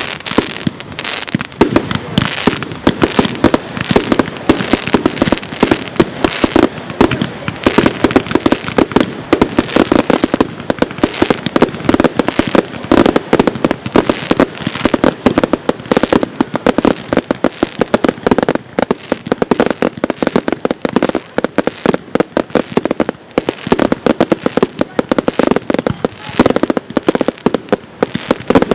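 Aerial fireworks bursting in a rapid, continuous barrage of sharp bangs and crackles.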